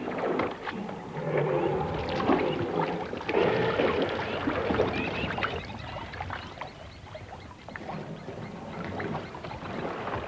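Water splashing and sloshing as a crowded herd of African elephants drinks at a river's edge, with many small splashes and knocks.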